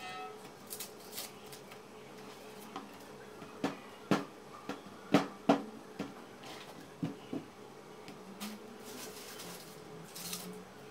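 Onions being peeled by hand with a kitchen knife: light cutting and scraping of the skins, with irregular sharp knocks and taps as peeled onions are set down on the counter and skins fall into a plastic basin. The loudest knocks come in a cluster around the middle.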